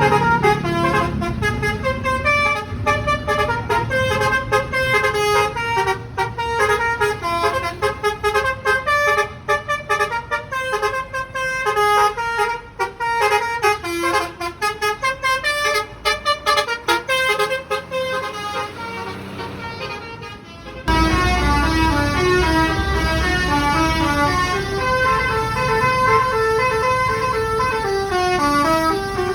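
Bus telolet horns, multi-trumpet musical air horns, playing quick tunes of short stepping notes over a bus engine's rumble. About two-thirds of the way through the sound changes abruptly to another horn tune with a louder engine underneath.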